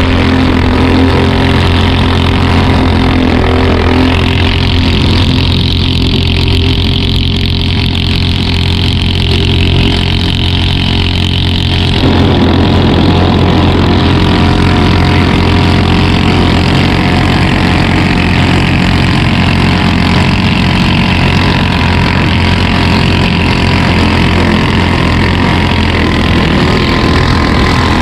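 Engine of a Thai long-tail racing boat ('rue brue', surface-drive 'floating' propeller shaft) running hard and loud at speed. From about four to twelve seconds in its higher tones drop back, then they return to full.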